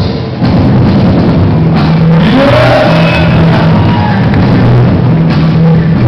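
Loud music with a heavy, repeating bass line and beat, played for dancers to break to.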